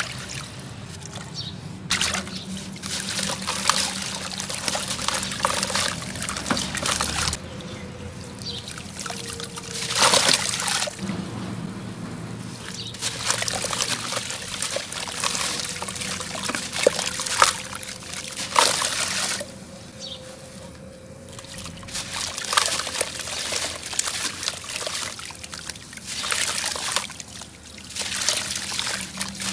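Soaked sand-cement clumps squeezed and crumbled by hand in a plastic tub of water: gritty crumbling, with pieces and grit splashing and trickling into the water. It comes in bouts with short lulls.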